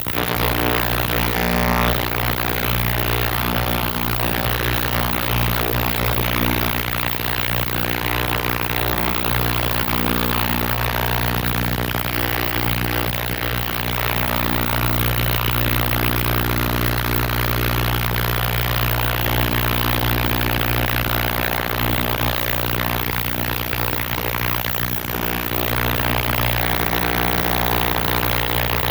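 Ultrasonic cleaner running with a carburetor main jet in its bath, loosening the gum blocked behind the jet: a loud, steady buzzing hum with a hiss over it.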